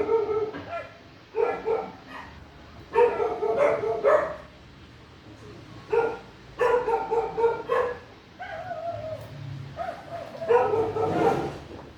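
A dog yipping and whining in a string of short, high calls with gaps between, one of them sliding down in pitch.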